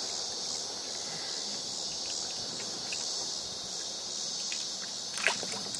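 Steady, high-pitched outdoor insect chorus trilling throughout, with a brief sharp knock near the end.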